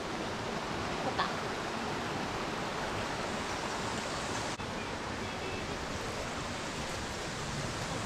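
Steady rushing of water, an even hiss-like roar with a momentary drop a little after halfway.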